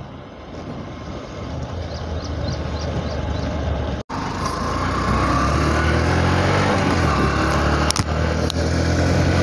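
Motorcycle engine running while riding, picked up by a helmet-mounted phone. The sound grows gradually louder, cuts out for an instant about four seconds in, then runs louder and steady, with two short clicks near the end.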